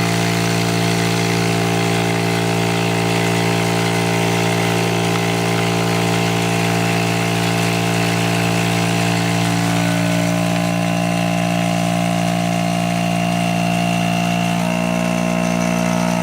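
Electric vacuum pump of a veneering vacuum-clamping kit running with a steady hum, pulling the air out of the veneer bag. Its tone shifts slightly about ten seconds in and again near the end as the vacuum builds.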